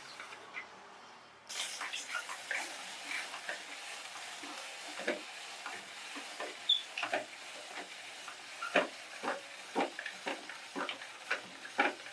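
Biscuit being crushed in a meat grinder: irregular crunching and crackling with sharp clicks, cutting in suddenly about a second and a half in.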